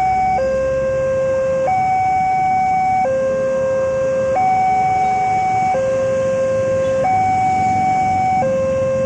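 Railway level-crossing warning alarm, an electronic two-tone signal that alternates between a higher and a lower tone about every 1.3 seconds. It sounds while the crossing's barrier is down and the red lamps flash, warning that a train is approaching.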